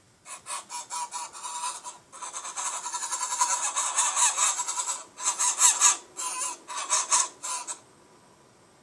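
Greylag geese giving a rapid series of harsh honking calls: a dense run through the middle, then separate bursts that stop about a second before the end.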